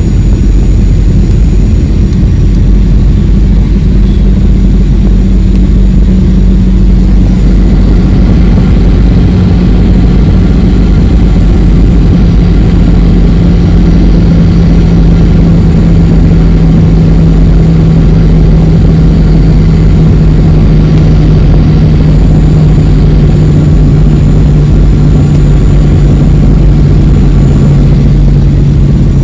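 Steady cabin noise inside a passenger jet during its landing approach and touchdown, with a low engine hum that slowly falls in pitch.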